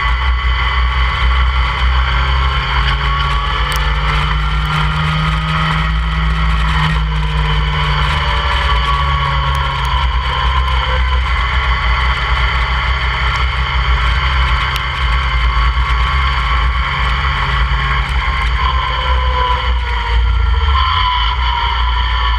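Open-cockpit track car's engine running at speed around a circuit, its pitch rising and falling slowly, under heavy wind noise buffeting the microphone.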